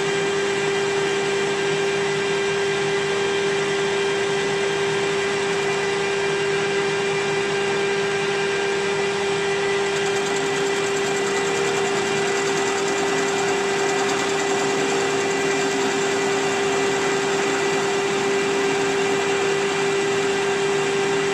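Metal-turning lathe running at steady speed while its cutting tool faces off the end of a bar of bearing stock: a constant machine hum with one strong steady tone over the hiss of the cut.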